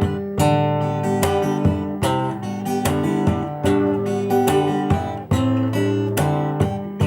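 Solo acoustic guitar played fingerstyle: plucked bass notes ring under a picked melody, with a quick note or chord attack several times a second.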